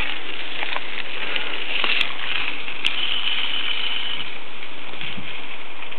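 Mountain bike rolling past on a gravel dirt track, with a few sharp clicks and knocks about two seconds in, over a steady hiss.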